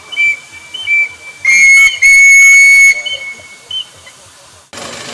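Steam whistles of miniature steam engines blowing: a thin steady whistle tone with small chirps, then two loud blasts about a second and a half in, the second longer. Near the end it cuts abruptly to a steady engine running.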